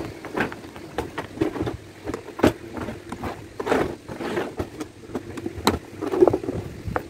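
A suitcase being handled on a workbench, its lid lowered and pressed shut: scattered knocks, sharp clicks and rustling of the shell and lining.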